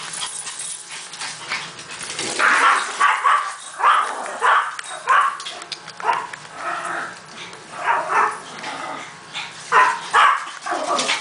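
Small dogs barking and yipping in short, excited bursts, starting about two seconds in and repeating every half second to a second, as they hunt a mouse.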